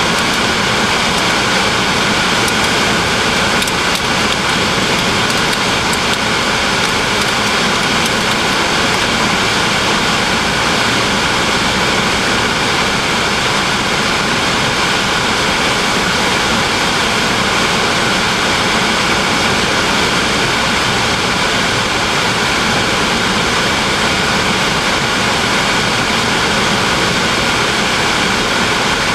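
Steady noise of a car driving, heard from inside the cabin: an even hiss of road, engine and air noise that hardly changes.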